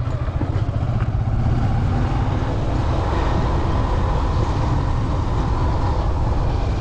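Motorcycle riding up a steep hill road, its engine and road noise running steadily under a heavy low rumble.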